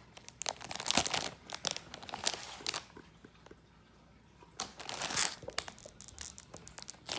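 Clear plastic packaging bag crinkling and rustling as it is handled, in two bouts with a quiet pause of about a second and a half in the middle.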